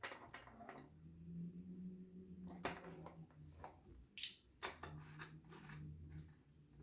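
Light clinks and knocks of kitchen utensils against a bowl and containers while ingredients are handled, over a low steady hum.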